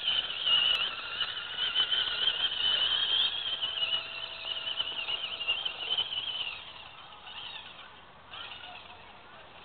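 Axial AX10 radio-controlled rock crawler's electric motor and gears whining, the pitch wavering as the throttle changes. The whine fades out about six and a half seconds in.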